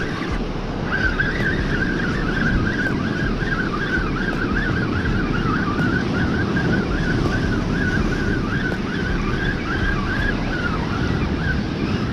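Spinning fishing reel being cranked steadily, a wavering whine from its gears that starts about a second in and stops near the end, over the wash of surf on the rocks.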